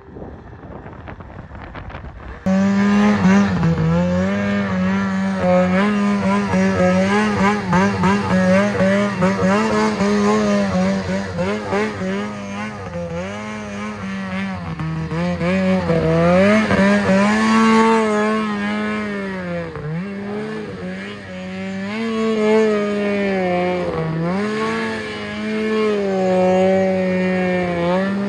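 Ski-Doo 600RS snowmobile's two-stroke twin engine running hard at high revs while the sled is ridden through snow and spun in circles, its pitch holding fairly steady with repeated dips and recoveries. It is fainter for about the first two seconds, then suddenly loud and close.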